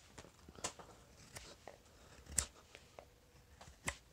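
Knife slicing strips of wood off the back of a wooden spoon blank: about four short, sharp cuts, the loudest a little past two seconds in, with small ticks between.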